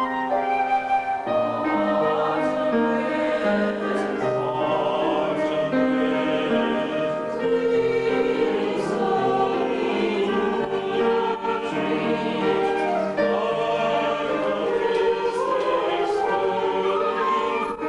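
Choir singing a slow choral piece, accompanied by flute, violin and piano.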